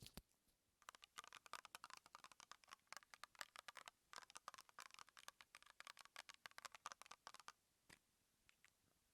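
Close-miked ASMR sounds: a dense run of small, rapid crackling clicks lasting about six and a half seconds, with a few single clicks before and after.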